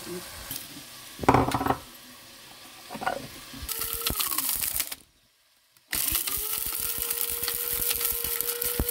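Small electric spice grinder grinding whole garam masala, in two bursts: a short run that winds down, then after a pause the motor spins up and runs steadily, with the spices rattling inside, until it stops abruptly near the end. A loud knock comes a little over a second in.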